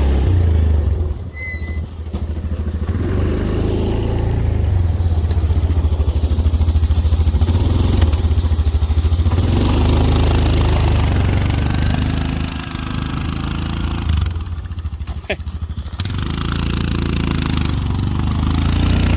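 Plow truck engine running hard as it pushes snow, with two brief easings in power, about a second in and again near the end.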